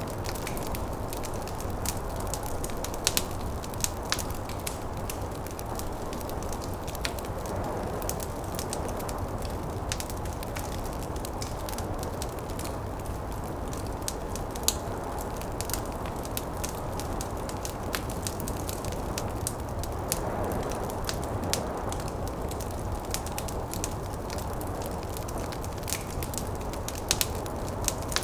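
Wood fire crackling, with scattered sharp pops, over a steady low rushing of snowstorm wind.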